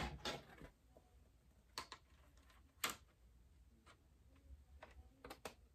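Clear plastic hardshell case being fitted onto a MacBook Pro's aluminium body: a few faint, scattered clicks and taps as the shell pieces are pressed on.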